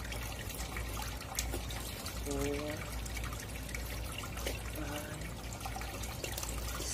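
Kitchen knife scraping scales off a large tilapia, a steady crackly, trickling scratching with scattered small clicks. Two brief pitched sounds come through, about two and a half and five seconds in.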